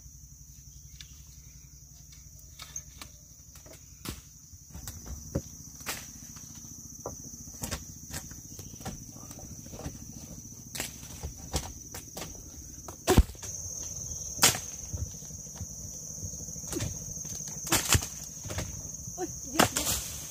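Insects droning steadily at a high pitch, with irregular knocks and clicks of something being handled; the loudest knock comes about 13 seconds in.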